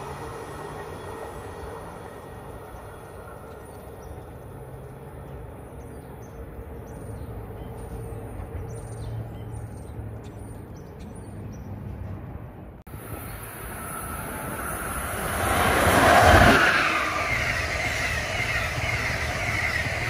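An Amtrak passenger train on the Northeast Corridor fades into the distance. After a sudden cut about two-thirds of the way through, another train swells up and rushes past at speed, loudest a few seconds later and staying loud to the end.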